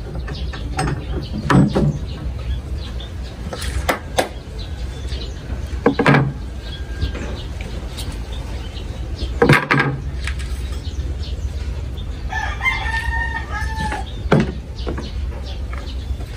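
Sharp knocks and clacks, about five spread through, as steel pipe clamps are released and a glued wooden board is handled on a workbench. A rooster crows once near the end.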